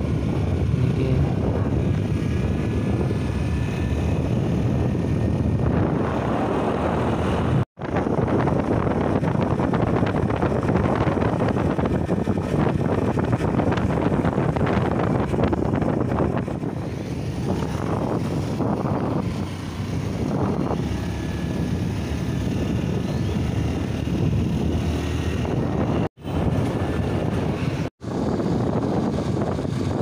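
Motorbike engine running at road speed with wind rushing over the microphone while riding. The sound cuts out for an instant three times, near the middle and twice near the end.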